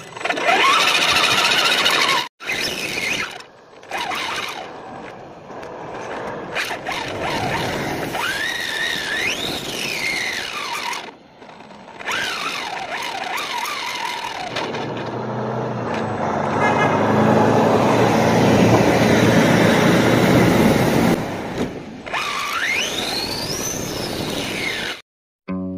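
Electric motor and drivetrain of a radio-controlled truck whining as it drives over asphalt, the whine rising and falling in pitch as it speeds up and slows down, over road and tyre noise. A lower, steadier drone takes over through the middle stretch, and the sound cuts out briefly a few times.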